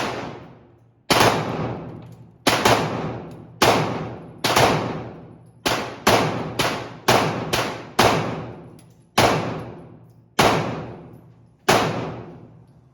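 A Glock 17 9 mm pistol firing a string of about a dozen shots, one every half-second to second, some in quick pairs. Each crack rings on in the echo of an indoor range.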